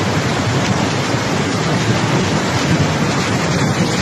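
Swollen, flooding river rushing past, a loud, steady noise of churning water.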